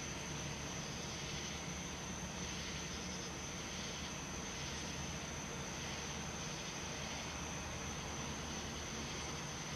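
Steady background noise: a low hum and hiss with a constant high-pitched tone running through it, and no distinct events.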